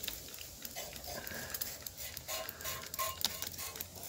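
Plastic trigger spray bottle squeezed over and over, a quick series of sharp trigger clicks as cleaning solution is sprayed.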